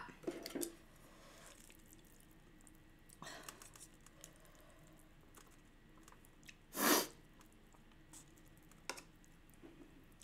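Quiet eating sounds: chewing and saucy instant noodles being stirred and lifted with chopsticks, with a few soft clicks and one short, louder noisy burst about seven seconds in.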